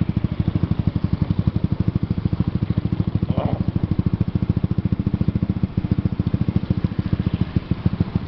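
Motorcycle engine running at an even, low pace, its exhaust pulses coming rapidly and steadily.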